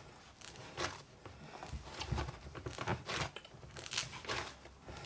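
Hands kneading a ball of bread-and-cheese paste on a laminate worktop: irregular squishing and tearing of the dough, with soft thumps as it is pushed down onto the surface.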